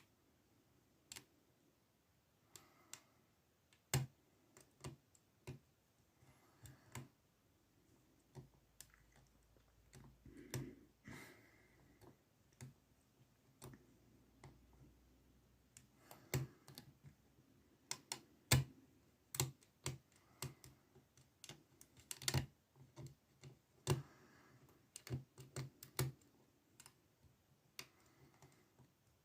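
Faint, irregular sharp clicks of a lock pick and tension wrench working the five pins of a Basta pin-tumbler padlock. The clicks come more often in the second half.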